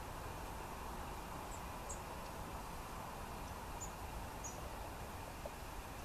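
Steady outdoor background rumble and hiss, with about five faint, very high, short bird calls scattered through it.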